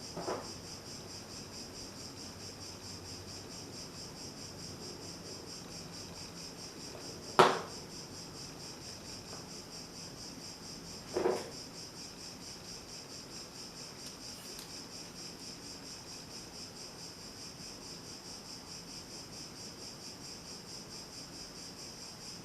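Steady high-pitched insect chirping, pulsing evenly, with two sharp knocks about seven and eleven seconds in.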